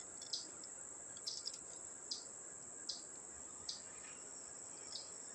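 Faint, steady high-pitched trill of insects such as crickets, with short chirps repeating about once a second.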